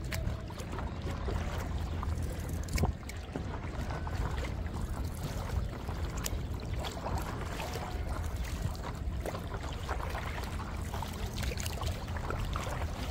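Water splashing and trickling around a paddle and an inflatable stand-up paddleboard being paddled on the sea, with many small splashes and drips over a steady low rumble of wind on the microphone.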